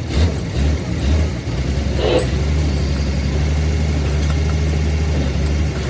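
An engine running steadily, uneven for about the first second and a half and then settling into an even, low hum.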